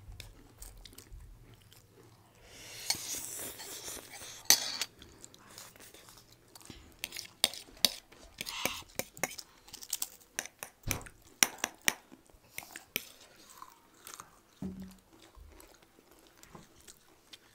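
Close-up eating sounds: crisp round potato biscuits being bitten and crunched, with chewing and now and then a fork clinking on a plate. The crunches and clicks come thickest in the middle stretch, after a softer hissy stretch near the start.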